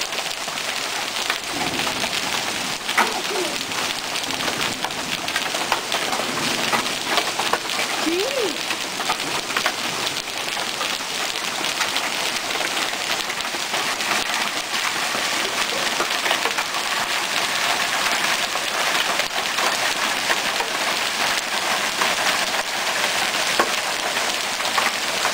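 Hail and heavy rain coming down together: a steady, dense hiss peppered with many small, sharp ticks of hailstones striking.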